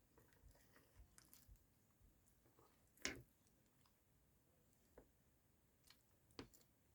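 Slime under a layer of fluffy shaving foam being pressed and squished by hand: faint soft squishing with a few sharp sticky clicks, the loudest about three seconds in.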